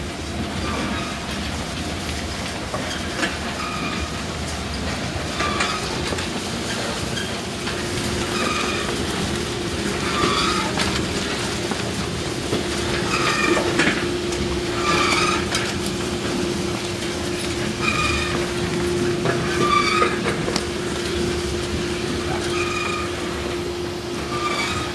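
Wood-chip live-wall bin's drive running: an electric motor turning a roller chain over a large sprocket, with a steady hum and a short squeak about every second and a half as the mechanism works.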